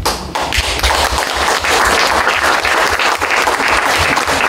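Audience applauding, many hands clapping at once, starting suddenly and keeping up steadily.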